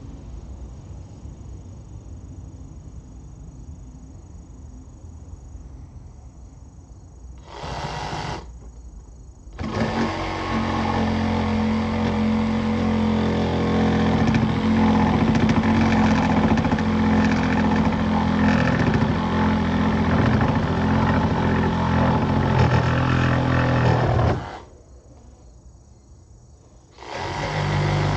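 BAUER 20V cordless reciprocating saw running: a brief trigger pull about eight seconds in, then a long steady run of about fifteen seconds that stops abruptly, and it starts again near the end.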